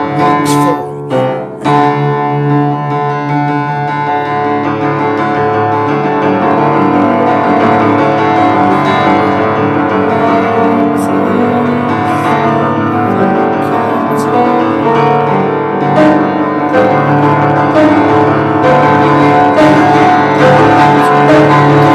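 Instrumental music led by piano or keyboard: sustained, changing chords with no singing.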